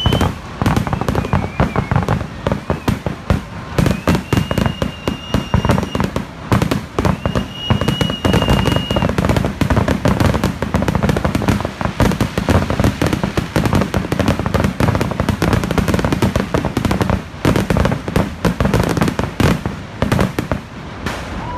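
Fireworks barrage: a dense, continuous run of rapid bangs and crackling, with two long high whistles over it about four and seven seconds in.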